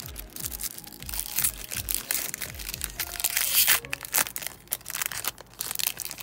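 Foil wrapper of a Pokémon booster pack crinkling and tearing as it is ripped open and peeled back from the cards, with the loudest crackle about three and a half seconds in. Background music with a bass beat plays underneath.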